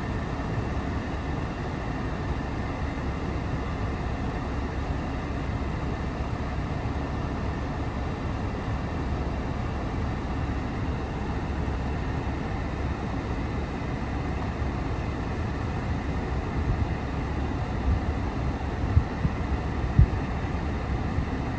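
Steady low rumble inside the cabin of a running 2017 Jaguar XE, with a few soft knocks near the end.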